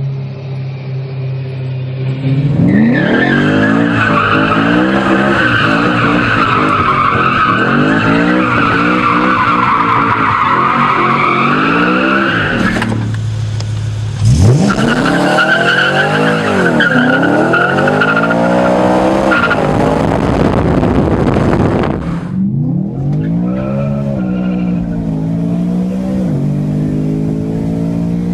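BMW E90 M3's V8 through a Gintani race exhaust, revving up and down while the rear tyres squeal in long drifts. After a couple of seconds of steadier running, the squeal runs about ten seconds, breaks briefly, returns for about eight, then stops, leaving the engine revving up and down on its own near the end.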